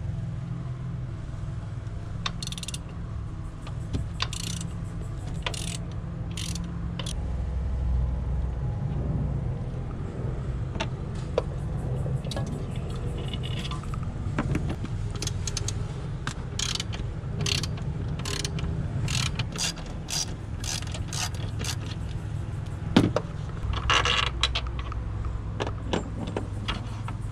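Hand tools working on a car's engine bay: bursts of rapid ratchet-wrench clicking and scattered sharp metal clinks as bolts and fittings are undone, over a steady low rumble.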